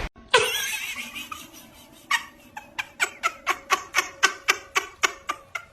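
A regular series of sharp clicks or taps, about four a second, starting about two seconds in.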